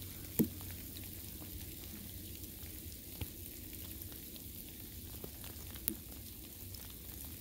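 Light mix of rain, snow and sleet falling: a steady fine hiss with scattered small ticks, and two sharper clicks, about half a second in and near six seconds.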